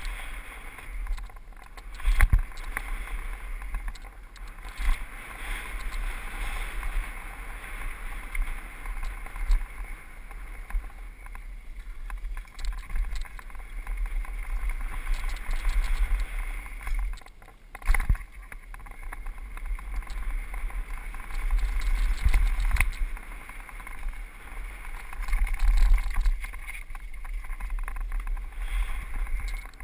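Mountain bike riding fast down a dirt trail, heard from a helmet camera: wind buffeting the microphone over the rattle of the bike, with a couple of sharp knocks as it hits bumps.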